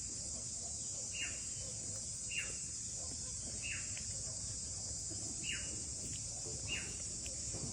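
Faint insect chorus: a steady high hiss, with a short falling chirp repeating about once every second and a bit.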